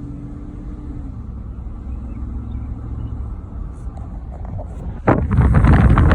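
Steady engine and road hum inside a 2021 GMC Yukon Denali's cabin while it is driven, with a faint steady tone that fades about a second in. About five seconds in, a sudden loud rush of wind buffeting the microphone takes over.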